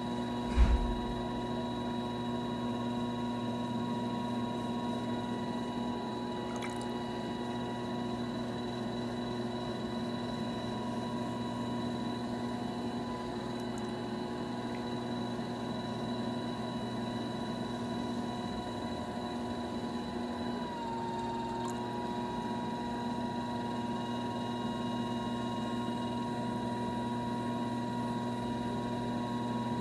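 Electric pottery wheel running at steady speed, its motor giving a constant hum with a thin high whine, as wet clay is centered and shaped on the spinning wheelhead. One thump about half a second in, and the whine dips briefly in pitch about two-thirds of the way through.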